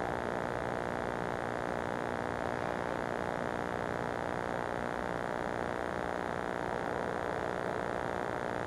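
Steady hiss and electrical hum with no other events: the signal noise of a wireless security camera feed recorded onto VHS.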